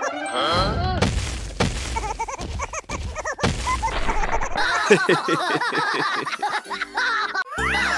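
Cartoon fight sound effects: a run of crashing, smashing impacts for roughly the first half, giving way to warbling pitched sounds and a few musical tones near the end.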